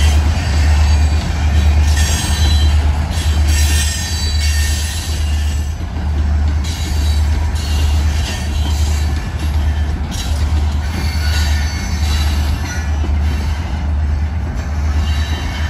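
Freight train tank cars rolling past, steel wheels rumbling on the rails with a heavy pulsing low rumble and intermittent high wheel squeal.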